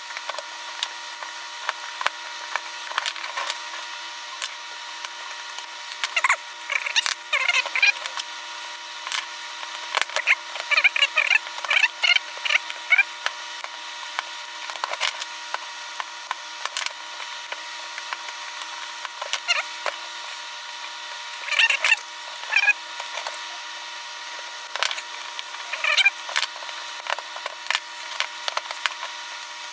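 Hand tools working on the cells of an opened DeWalt lithium-ion battery pack: scattered clicks and knocks, with several short bouts of scraping and squeaking.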